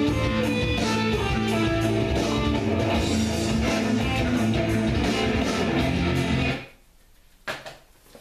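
Rock band recording with electric guitar and bass playing steadily, then stopping abruptly near the end for a short break with a single brief hit.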